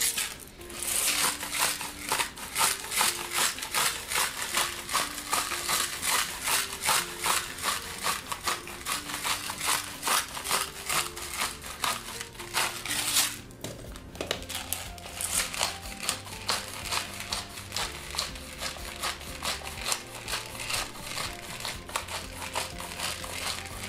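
Salt and pepper mills grinding over a roast in quick crunching twists, about four strokes a second, with a brief pause about halfway through. Background music plays underneath.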